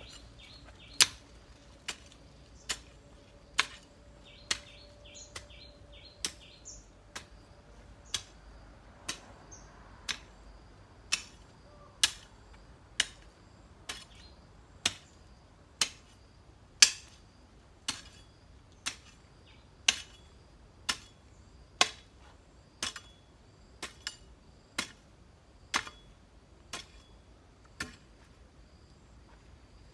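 Long-handled garden hoe chopping into soil with a sharp strike about once a second, stopping near the end. Birds chirp in the first few seconds.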